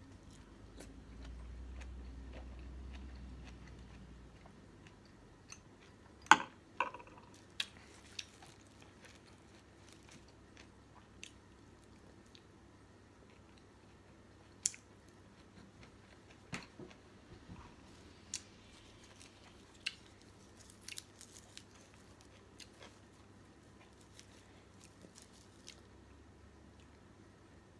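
A person chewing a mouthful of steamed fish and raw greens, with scattered sharp clicks and small crunches, the loudest about six seconds in. A low rumble runs through the first few seconds.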